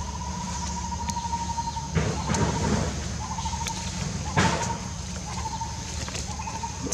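Steady, one-note insect drone from the forest, broken by short gaps. It is joined by two brief rustles of dry leaves about two and four and a half seconds in.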